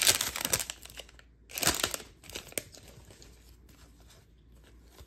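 A trading-card pack's foil wrapper being torn open and crinkled, with loud bursts over the first second, again just before two seconds in, and briefly after. Then the cards are handled with only soft faint rustling.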